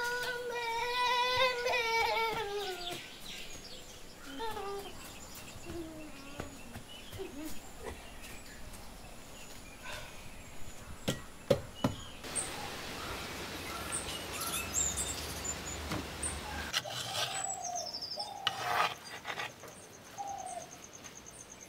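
Birds chirping in rural surroundings. A drawn-out wavering call sounds in the first few seconds, and a few sharp knocks come about halfway through.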